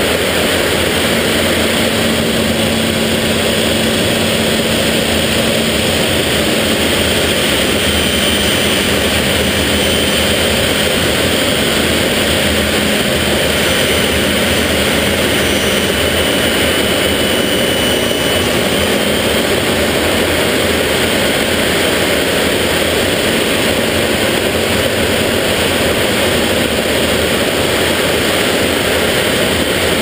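BAC Jet Provost in flight, heard from inside the cockpit: its Viper turbojet and the airflow make a loud, steady rushing noise. A faint high whine wavers in pitch through the middle.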